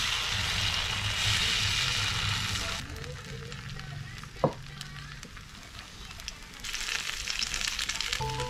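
Takoyaki batter sizzling as it hits a hot electric takoyaki grill plate, a steady hiss. The sizzle eases about three seconds in and rises again near the end, with a single sharp knock about halfway through.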